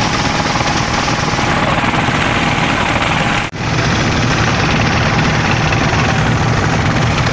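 Fishing boat's engine running steadily under way, with the wash of water along the hull; the sound drops out for a moment about halfway through.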